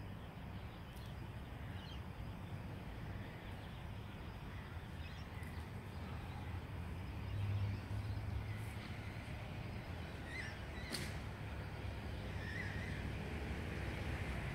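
Outdoor garden ambience: a steady low rumble with a few faint bird chirps near the end, and light snaps and rustles of coriander stems being picked by hand.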